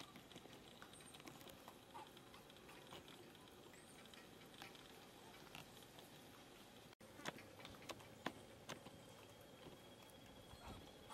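Near silence: faint outdoor ambience with scattered small clicks and ticks. A few sharper clicks come just after a brief dropout about seven seconds in, and a faint steady high whine starts about nine seconds in.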